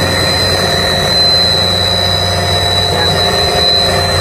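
Industrial refrigeration compressor running: a steady, loud machine hum with a thin, high, constant whine over it.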